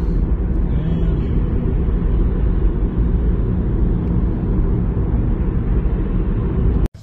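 Steady low rumble of road and tyre noise inside a car's cabin at highway speed, cutting off suddenly near the end.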